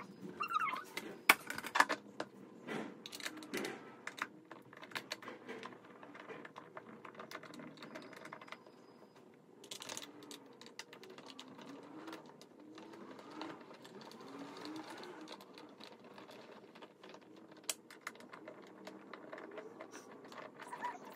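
Irregular clicks, taps and light knocks of metal and plastic parts being handled and fitted while a computer chair is assembled, with no steady rhythm.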